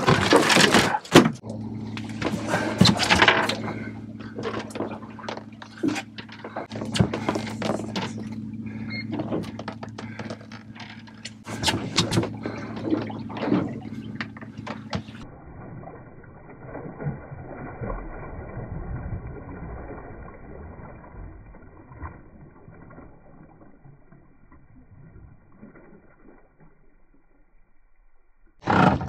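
Knocks and bumps of a landed tope being handled on a small boat's deck over a low steady hum for about the first half. Then, after a sudden change in sound, water sloshing and lapping against the hull as the shark is released.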